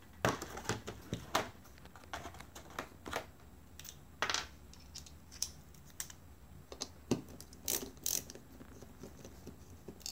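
Irregular sharp clicks and light taps, roughly one a second, from a soldering iron and fingers working the pins of a lithium-ion battery pack's circuit board during desoldering.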